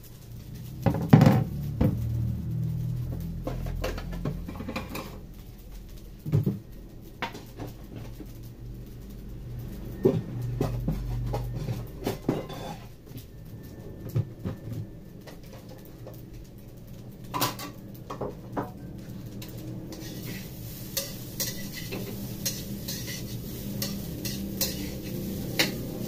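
Metal kitchenware clanking and knocking now and then, over a steady low hum. Near the end, a metal spatula scrapes and taps quickly in a stainless steel wok as rice is stir-fried.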